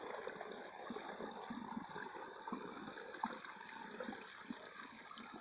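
Water of a small spring-fed woodland stream running steadily over rocks.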